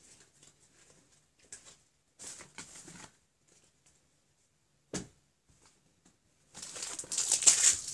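Pokémon trading cards and their packaging being handled: scattered soft rustles, a sharp click about five seconds in, then a louder rustle near the end.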